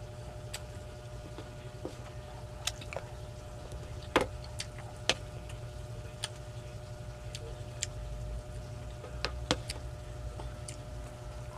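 Eating sounds: a wooden spoon scooping rice from a tray and mouth sounds of chewing, heard as scattered sharp clicks and taps, the loudest about four and nine seconds in, over a steady low hum.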